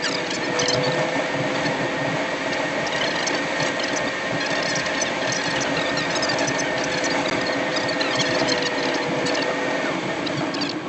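Steady vehicle cabin noise while driving, a hum of engine and road with a couple of constant tones, dotted with many small irregular ticks.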